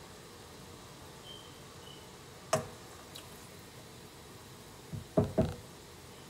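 A spoon stirring sauce simmering in a stainless steel pan over a faint steady hiss, with one sharp knock about two and a half seconds in and a few dull thumps of the spoon against the pan near the end.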